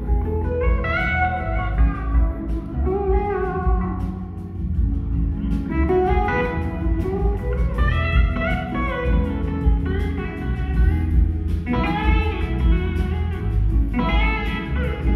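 Live rock band playing a slow blues-soul ballad, with an electric slide guitar lead whose notes glide up and down over bass and drums.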